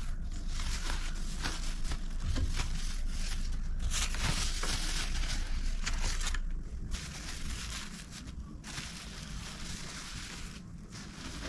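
Thin plastic food-wrapping sheet crinkling and rustling as it is handled and lifted around a rice-and-curry meal. It is loudest for the first six seconds or so, then quieter and more broken up.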